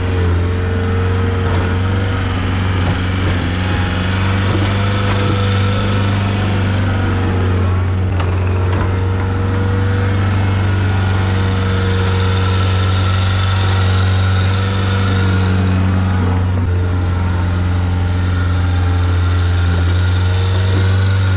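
Skid steer engine running steadily at a constant speed, a loud even drone with a strong low hum.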